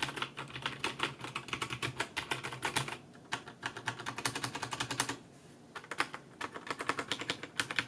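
Typing on a compact mechanical keyboard: a fast, continuous run of key clicks, with a brief pause about five seconds in before the typing resumes.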